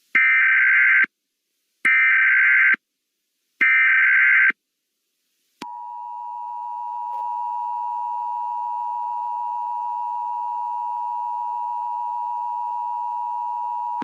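Emergency Alert System header: three short bursts of warbling digital data tones, about a second each with short silences between, then the EAS two-tone attention signal, a steady harsh tone starting about five and a half seconds in.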